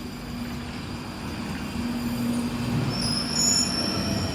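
London Underground 1995 stock train running into the platform, growing louder, with a steady low hum from its traction equipment and a high-pitched squeal starting about three seconds in.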